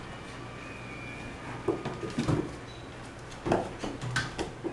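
A Border Collie and a cat wrestling on a wooden floor: scuffling and a few knocks, in two bursts, one about two seconds in and one about three and a half seconds in.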